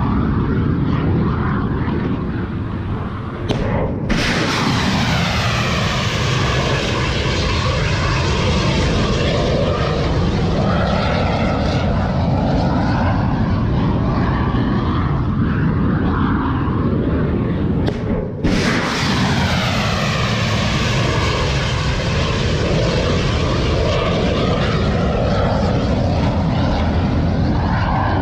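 Loud, continuous engine roar of something flying in the sky, with a slow sweeping, phasing quality. It briefly drops out twice, about four and eighteen seconds in.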